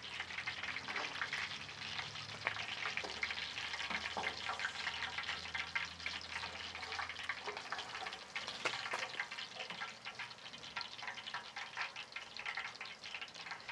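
Hot oil crackling and spattering steadily: mojarra frying in deep oil in a copper pot, a dense run of small irregular pops.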